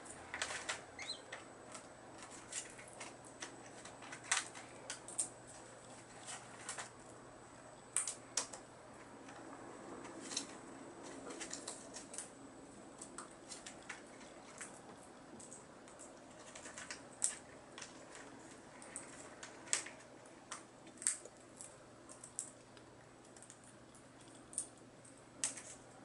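Brown-headed parrot chewing a wooden chew stick with its beak: irregular sharp clicks and cracks, sometimes several close together, with gaps of a second or more between some of them.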